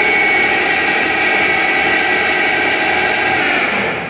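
Okuma Crown 762S-BB CNC lathe running, most likely its spindle turning at speed, with a steady high whine. The sound drops away just before the end, as the machine slows.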